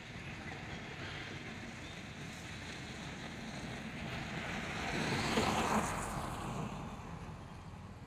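A vehicle passing by, its noise swelling to a peak about five to six seconds in and then fading, over steady outdoor background noise.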